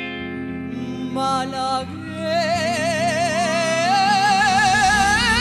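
Male singer holding long, wordless notes with a wide vibrato into a handheld microphone, stepping up in pitch partway through, over a live band's sustained chords.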